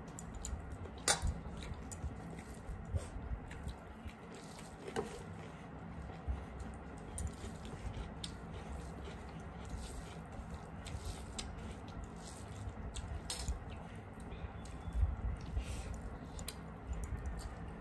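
Close-up eating sounds: wet chewing and lip smacking as rice and fish curry are eaten by hand, with fingers squishing and mixing rice on steel plates. Many small, irregular clicks and smacks.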